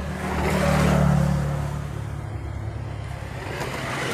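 A motor vehicle's engine running nearby, a steady low hum that swells as it passes about a second in and then fades.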